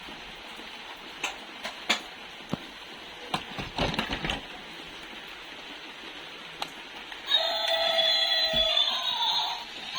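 A few light, sharp clicks and taps over a steady hiss. About seven seconds in, background music starts and gets louder.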